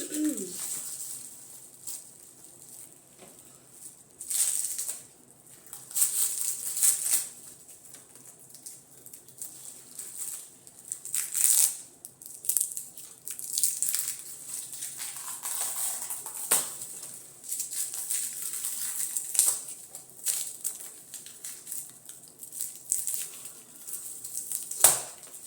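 Irregular rustling and crinkling, like packaging being handled, in short bursts, with one sharp knock near the end.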